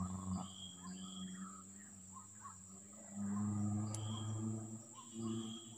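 Outdoor pond-side ambience: insects trilling steadily at a high pitch, with short bird chirps. A low hum grows louder about three seconds in, and there is a single faint click near four seconds.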